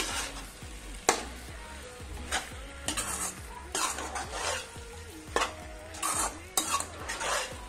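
Stainless steel slotted spatula stirring macaroni and tomato-vegetable masala in a black pan, scraping and clicking against the pan at irregular intervals, over a faint sizzle of the food frying.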